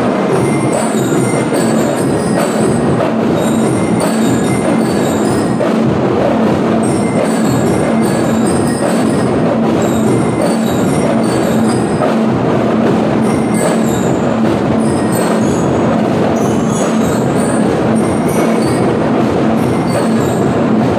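School drum and lyre corps playing: bell lyres ring out a melody over a steady beat of marching drums, without pause.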